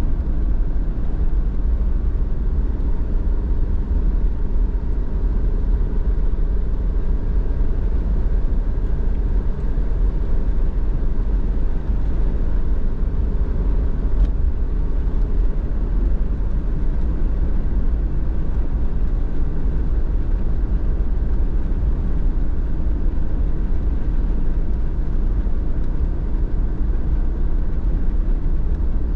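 Car driving at a steady pace: a continuous low engine and tyre rumble that holds even throughout.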